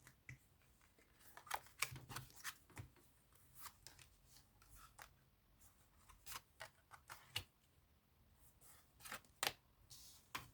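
Tarot cards being handled: soft, scattered flicks and slides of cards being shuffled and laid out, with a few sharper card snaps near the start and again near the end.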